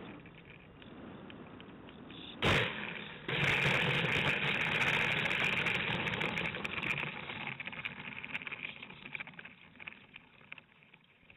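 Model plane's landing gear touching down with a sharp thump about two and a half seconds in, then its wheels rolling and rattling over rough gravel ground, heard from a camera on the fuselage; the noise fades as the plane slows to a stop.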